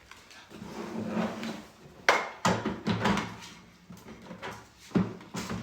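A leg being pushed and snapped into a bassinet frame during assembly: scraping and rattling of the parts, then sharp clicks and knocks, the loudest about two seconds in and another near the end.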